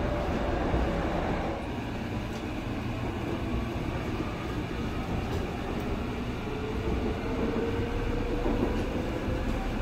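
Seoul Subway Line 2 train (2000-series electric multiple unit) running, heard from inside the car: a steady rumble of wheels on the rails. From about six and a half seconds in, a faint whine slowly rises in pitch, typical of the traction motors as the train gathers speed.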